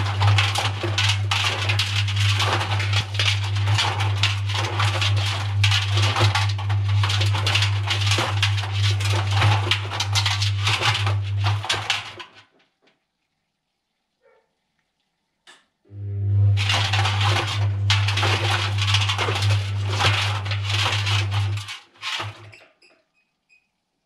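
Front-loading washing machine turning its drum with balloons inside: a steady motor hum under a continuous rustling and rubbing of the balloons tumbling against the drum. It runs for about twelve seconds, stops for about four, then turns again for about six seconds and stops, the stop-and-go of a wash cycle.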